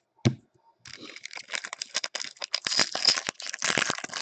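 Foil wrapper of a baseball card pack crinkling and tearing as it is ripped open by hand, starting just under a second in and growing louder toward the end. A single knock comes just before.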